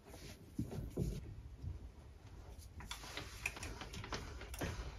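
Faint, scattered light clicks and knocks of metal parts being handled as a small three-jaw chuck is worked by hand, over a low workshop hum.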